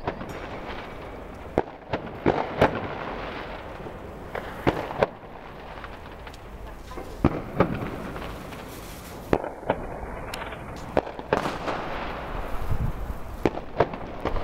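Firecrackers and fireworks banging irregularly, about a dozen sharp reports, some louder and closer than others, over a constant din of more distant New Year's Eve fireworks.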